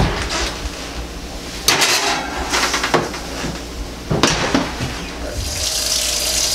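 Kitchen clatter: a series of sharp metal clanks and knocks, about five, as a baking sheet of foil-wrapped fish is handled at the oven, followed by a steady high hiss near the end.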